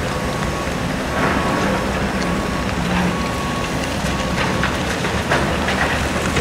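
Volvo EC220E excavator's diesel engine and hydraulics working under load as a bucket of clay is dumped into a Scania tipper trailer, with a few dull knocks as the clay lands, the sharpest near the end.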